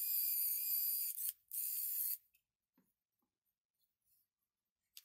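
Small battery-powered electric motor of a homemade 3D-printed cordless screwdriver running with a high whine in two short runs, about a second and a half and then under a second, with a brief stop between. A couple of faint clicks follow.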